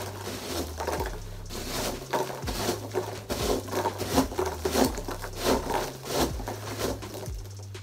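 Biodegradable starch packing peanuts rustling and scraping as hands scoop them out of a box and toss them aside, in a quick, irregular run of short rustles.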